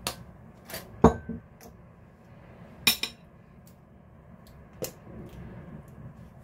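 A series of sharp clinks and knocks of kitchenware: a metal spoon set down against a ceramic plate and a sauce bottle and pepper shaker handled on the counter. The loudest knocks come about a second in and about three seconds in.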